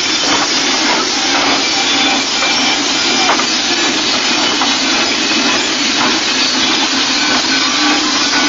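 Many large cowbells on the backs of sheepskin-clad Sardinian carnival masks clanging continuously as the dancers jump and sway, a steady dense jangle with no break.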